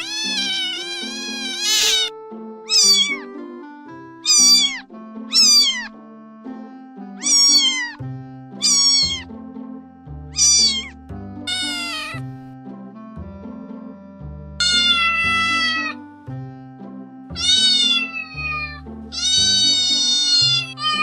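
Cats meowing, about a dozen separate meows with pauses between, some short and falling in pitch, some long and drawn out, over a steady background music track.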